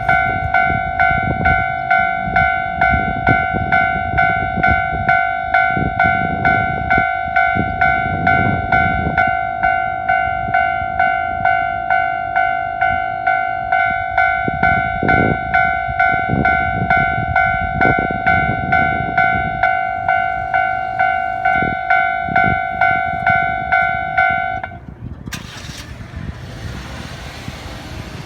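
Railroad-style level-crossing warning bell ringing steadily at a little under two dings a second, over the low rumble and thuds of heavy double-trailer trucks passing over the crossing. The bell stops about 25 seconds in, followed by a brief rush of noise.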